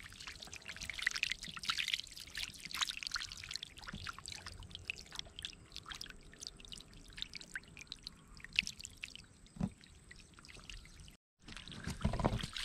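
Dozens of small fish thrashing and splashing in a shallow trickle of water, a dense, irregular patter of small splashes over running water. After a brief break near the end there is louder splashing.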